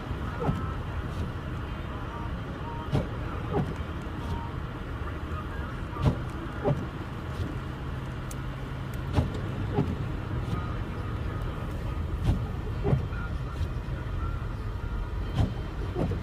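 Convoy of snow plow trucks on a snow-covered highway: a steady low engine and road rumble, with sharp knocks that come in pairs and repeat about every three seconds.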